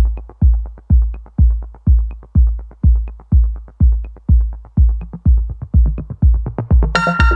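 Electronic background music with a steady deep kick drum about twice a second; sustained synth notes come in near the end.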